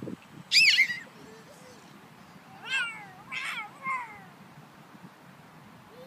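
A young child's high-pitched squeals: one loud shriek about half a second in, then a few shorter squeals that fall in pitch around three to four seconds in.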